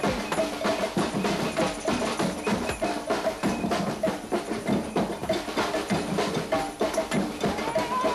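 Percussion music: drums and wood-block-like clicks playing a quick, steady beat.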